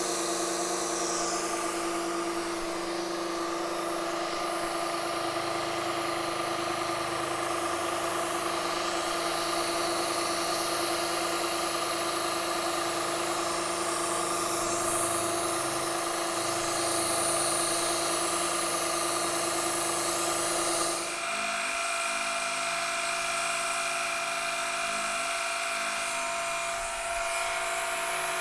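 Milling machine spindle turning a quarter-inch end mill at about 1600 RPM, cutting a slot on a 70-thousandths-deep first pass: a steady, high machine whine. About three-quarters of the way through its tone changes abruptly and carries on.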